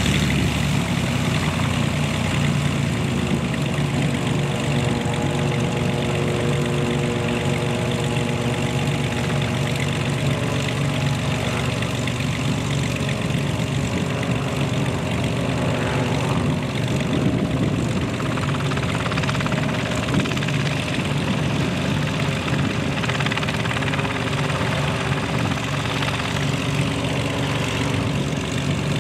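Several small kit helicopters running and departing, a steady mix of engine and rotor noise.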